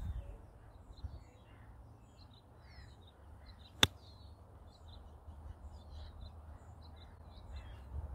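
One sharp, crisp click about four seconds in: a Callaway MD4 wedge striking a Chromesoft X golf ball on a full pitch shot from turf. Birds chirp throughout.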